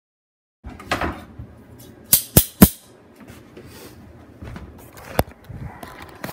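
Handling noise close to a phone's microphone: rustling with sharp knocks and taps, three in quick succession about two seconds in and another a little past five seconds.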